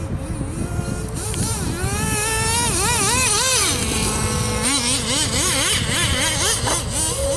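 Traxxas Jato 3.3 RC nitro car's small two-stroke glow engine revving up and down with the throttle, its pitch swinging rapidly. It climbs highest between about two and four seconds in, then revs again in shorter swings.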